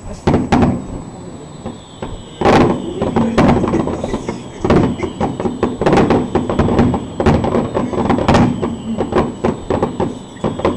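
Aerial fireworks exploding: two bangs near the start, then from about two and a half seconds in a dense barrage of rapid bangs.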